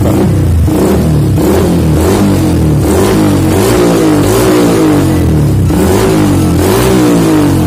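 Yamaha New Vixion Advance 150 cc single-cylinder fuel-injected engine, running on an aftermarket BRT ECU, revved hard again and again through a short PDK aftermarket muffler. Its pitch climbs and drops back about once a second in a loud, even roar.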